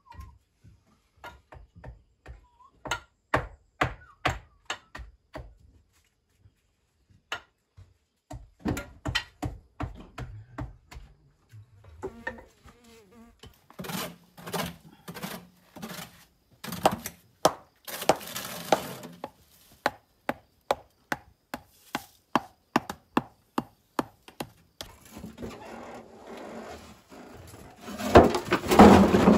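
Stonemasons' hammers striking and dressing schist stones: many sharp, irregular knocks, sparse at first and coming thicker after about halfway, with a louder clatter of stone near the end.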